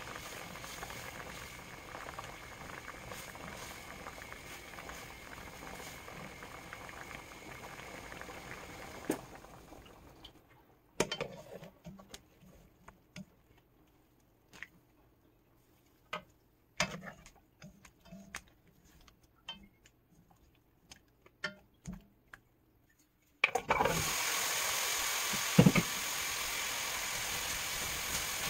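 Sliced lotus root boiling in a shallow pan of water, a steady bubbling hiss. About ten seconds in it drops to scattered light clicks and taps as the slices are scooped out with a wire strainer and chopsticks. Near the end a louder steady sizzle starts as the drained slices go into a hot pan and are stirred with a wooden spatula, with a few knocks.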